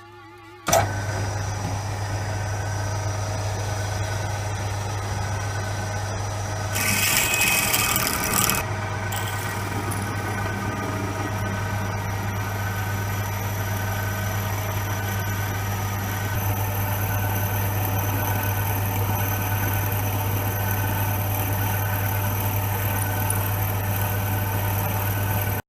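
A workshop machine running with a steady electrical hum, starting suddenly. About seven seconds in, a loud hiss lasts a little under two seconds.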